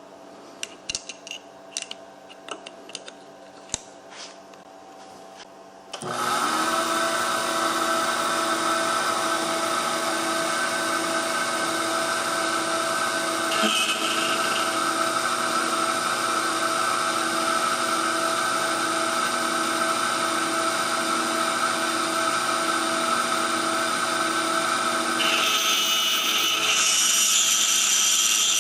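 A few light clicks, then about six seconds in a CNC machine's spindle starts and runs with a steady whine and a regular pulsing underneath. Near the end a rougher, higher hiss joins in as the cutter works into the wood.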